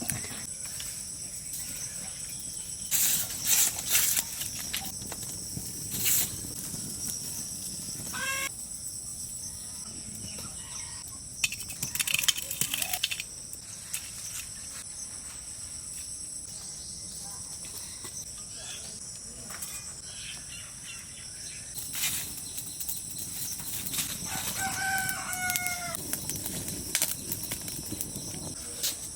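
Village chickens: a rooster crows near the end, and a shorter call comes about eight seconds in. Short noisy bursts, like wings flapping, come several times, all over a steady high-pitched insect drone.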